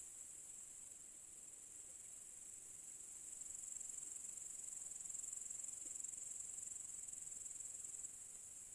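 Crickets chirring in a steady, high-pitched drone. A second, higher-pitched insect joins about three seconds in and stops abruptly near the end.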